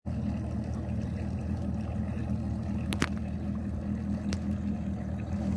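Bass boat's outboard motor idling with a steady low hum. A sharp click comes about three seconds in, and a fainter one about a second later.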